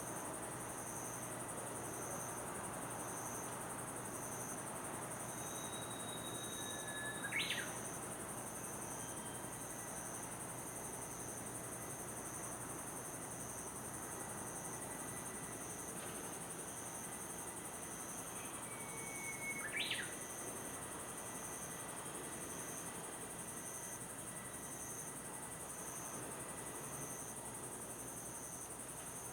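Steady, high-pitched chirring of insects with a pulsing rhythm. Two brief sharp chirps break in, about seven and twenty seconds in.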